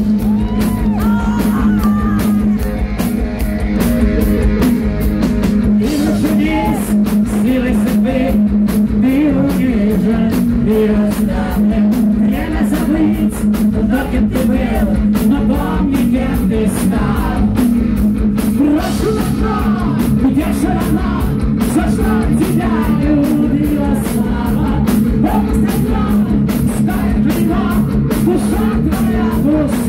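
Heavy metal band playing live: a male singer over distorted electric guitar, bass guitar and a drum kit, the vocals coming in about a second in.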